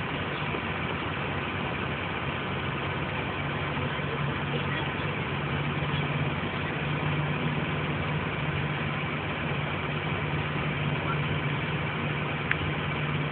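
A steady low mechanical hum under a constant hiss, growing stronger a few seconds in, with a single sharp click near the end.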